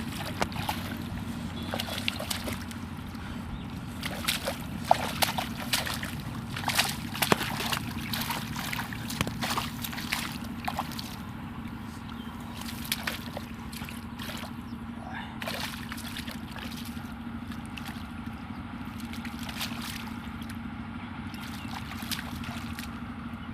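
Water sloshing and splashing, with many sharp splashes in the first half that thin out later, over a steady low hum.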